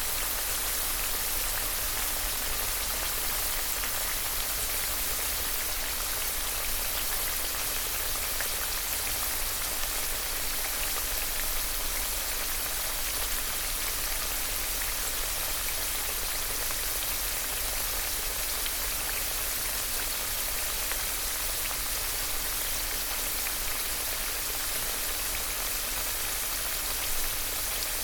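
Food frying in hot oil, a steady dense sizzle and crackle that holds even throughout.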